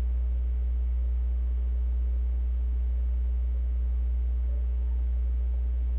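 Steady low electrical hum: one deep unchanging tone with fainter overtones above it.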